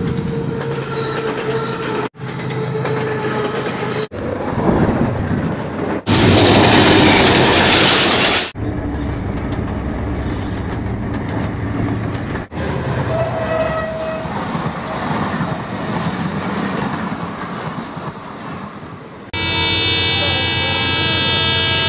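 Diesel locomotives and trains running past in a string of short cut-together clips, with a very loud close pass about six to eight and a half seconds in. Near the end a steady multi-tone diesel locomotive horn sounds and holds.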